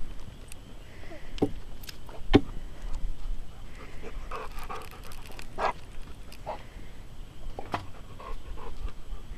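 Spotted Saddle Horse pony moving under a rider on a dirt arena, breathing hard as it goes. Several sharp clicks sound over it, the loudest about a second and a half and two and a half seconds in.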